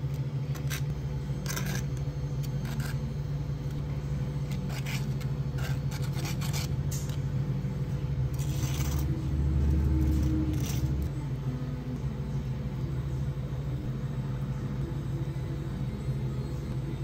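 Steady low hum of cafe machinery with scattered clicks and light clatter from work at the counter. A low rumble swells briefly about nine seconds in.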